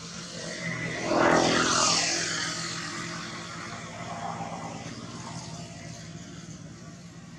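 A passing engine: a steady drone swells sharply about a second in, then fades slowly.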